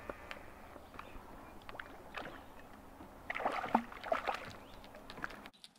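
Light water lapping and dribbling, then a hooked panfish thrashing and splashing at the surface for about a second, starting some three seconds in.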